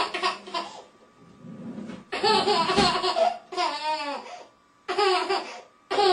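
Baby laughing in several breathy bursts, with high squealing giggles about four seconds in and again near the end.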